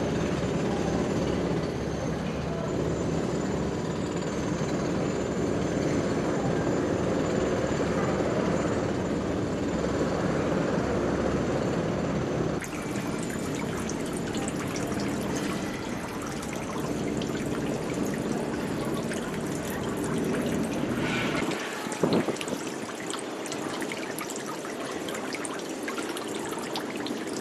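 A steady low rumble, then, about halfway in, water pouring from bamboo spouts into a shrine's stone purification basin: a continuous splashing trickle. There is a single brief knock about two-thirds of the way through.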